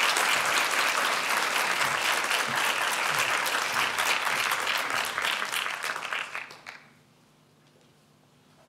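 Audience applauding, the clapping thinning out and dying away about seven seconds in, leaving quiet room tone.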